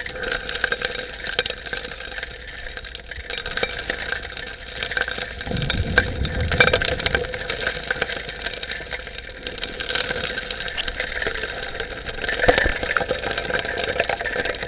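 Gold suction dredge running steadily, its engine and pump heard underwater as a continuous mechanical drone while the suction nozzle works the riverbed gravel. It has a couple of louder swells about six and twelve seconds in.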